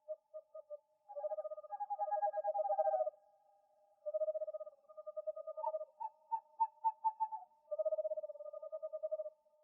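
Owl calls: rapid pulsed trills delivered in phrases of one to two seconds, several in a row. Two calls at different pitches overlap at times, and a run of separate short hoots comes in the middle.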